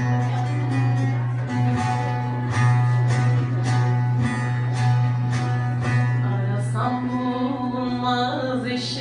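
Bağlama (long-necked Turkish saz) played in a strummed instrumental passage, its strokes coming at an even pulse over a steady low tone. A voice comes in singing near the end.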